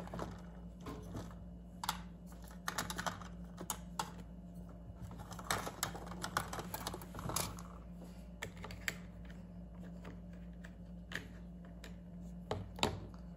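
Scattered light clicks and taps at an uneven pace, like keys being typed, over a steady low hum.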